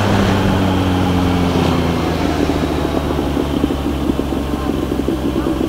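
Kawasaki Z900 inline-four motorcycle engine slowing down: its pitch falls over the first two seconds, then holds steady at low revs under road and wind noise.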